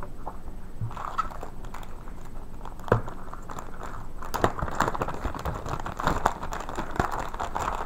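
Clear plastic bag crinkling and rustling as hands handle and open it, with many small crackles and one sharper click about three seconds in.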